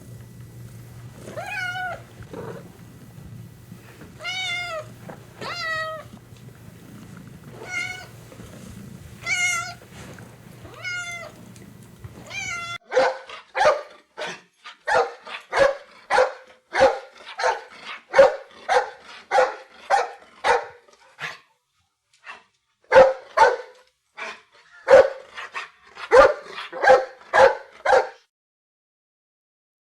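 A domestic cat meowing repeatedly, with a low steady hum underneath. About 13 seconds in this gives way to a dog barking in quick runs of about two barks a second, with a short pause partway through.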